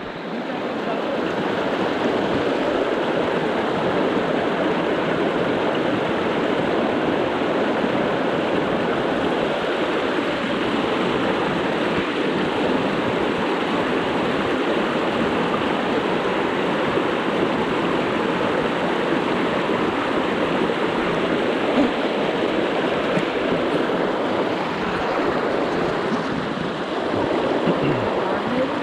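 River water rushing steadily, an even unbroken rush.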